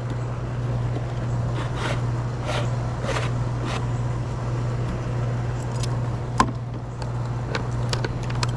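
2008 Carrier heat pump package unit running with a steady low hum. Several short hissing sprays of coil cleaner are applied to the coil, and a sharp click comes about six seconds in.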